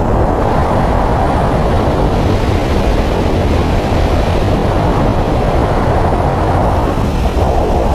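Steady rumble of a moving road vehicle, an even low drone of engine and tyre noise that holds at one level with no changes.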